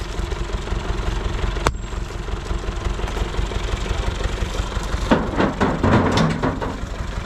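Massey Ferguson 285 tractor's diesel engine idling steadily. About five seconds in, a rock is levered loose with an iron bar, and for over a second there are scraping and knocking sounds of stone on stone.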